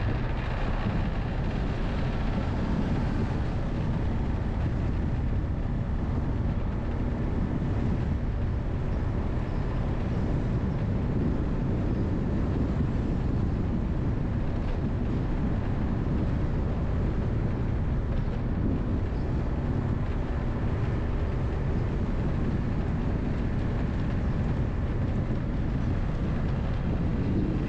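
Steady wind and road noise from a moving vehicle, with wind rushing over the microphone.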